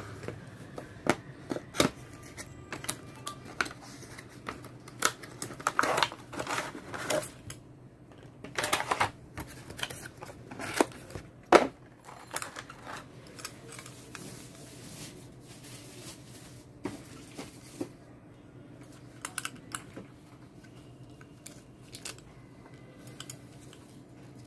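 Unboxing handling noise from a cardboard box and a clear plastic blister tray: irregular clicks, taps and crinkles, busiest in the first half and thinning out later.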